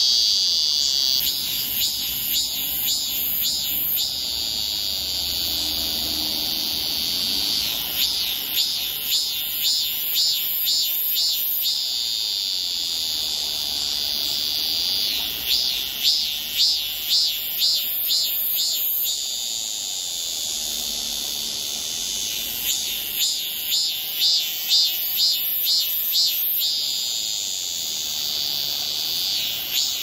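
Cicada singing close by: a loud, high, steady buzz that three times breaks into a run of rhythmic pulsing calls, about two a second and lasting several seconds each, before settling back into the steady buzz.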